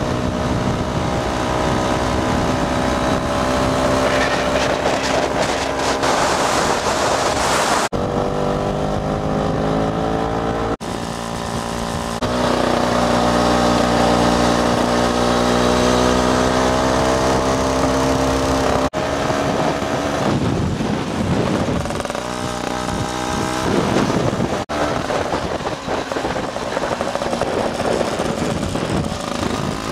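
Motor scooter and motorcycle engines running on the open road, their pitch slowly rising and falling, with abrupt changes in the engine sound several times.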